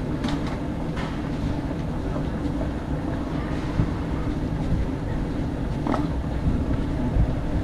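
Wheeled suitcase rolling over a hard terminal floor: a steady low rumble with a few faint clicks, over the background noise of a busy hall.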